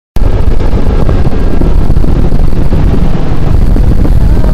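Strong wind buffeting the microphone on a ship's open deck: a loud, steady, low rumbling blast that cuts in abruptly just after the start.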